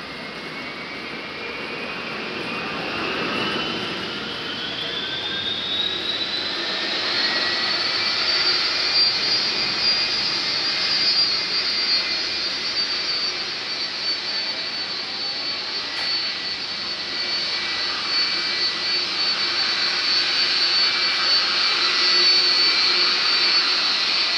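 Airbus A320's twin CFM56 turbofan engines spooling up to takeoff thrust. A whine rises in pitch over the first eight seconds or so, then holds high and steady while the engine noise keeps growing louder through the takeoff roll and liftoff.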